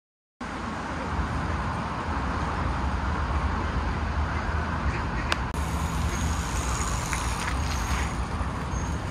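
Steady outdoor background of distant road traffic, a continuous low rumble, with faint high bird chirps in the second half and a sharp click about five seconds in. It begins after a moment of silence.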